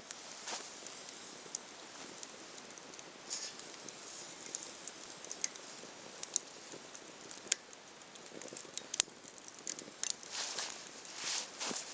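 Small wood campfire crackling: irregular sharp pops and ticks over a soft hiss, a little denser near the end.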